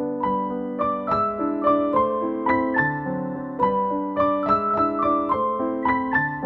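Background piano music: a gentle melody of struck notes, several a second, over sustained lower notes.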